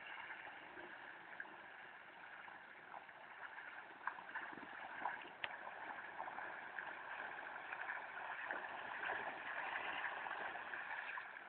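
Floodwater running and gurgling steadily, with scattered small splashes.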